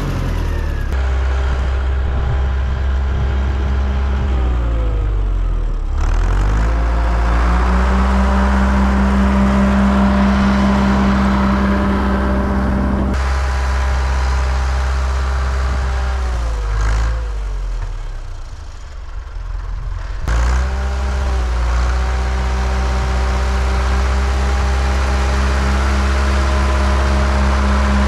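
White farm tractor's engine running under load while plowing snow. The engine speed dips about five seconds in, then drops to a low idle about two-thirds of the way through before picking back up some three seconds later.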